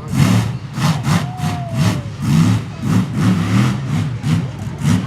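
Monster truck engine being revved in repeated throttle blips, surging and dropping about once or twice a second.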